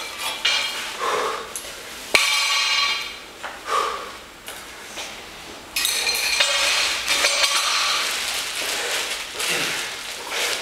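A 50 kg barbell with rubber bumper plates dropped onto the gym floor after a clean: a sharp impact about two seconds in, followed by the metal bar and plates ringing. More metallic clanking and ringing from the bar from about six seconds in.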